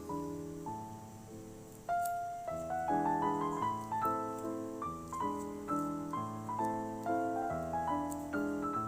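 Background piano music: a gentle melody of single notes that strike and fade, about two a second.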